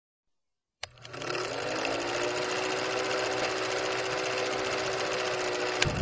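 Film projector running: a fast, even mechanical clatter with a motor hum that rises in pitch as it comes up to speed, starting just under a second in with a click and stopping with a click near the end.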